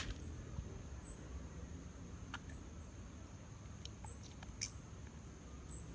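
Quiet outdoor background: a short, high chirp repeats about every second and a half over a faint steady high tone and low rumble, with a few soft clicks.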